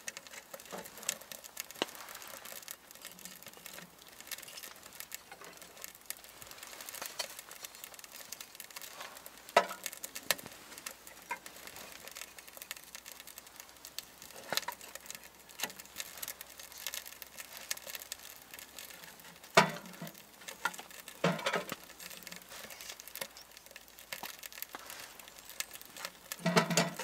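Small kindling fire crackling in a Winnerwell metal tent stove, with sharp knocks and clatters as split kindling sticks are laid onto the fire grate, about half a dozen of them louder than the rest.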